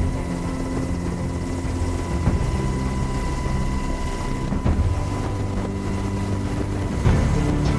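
Helicopter turbine and rotor noise heard from aboard the aircraft: a steady, loud low drone with a constant high whine over it.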